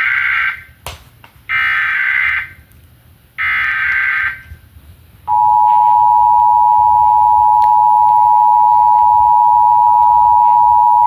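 Emergency Alert System signalling: three short buzzy bursts of SAME header data, about a second each with short gaps between, then about five seconds in the steady two-tone attention signal starts and holds. This is the opening of a required monthly test.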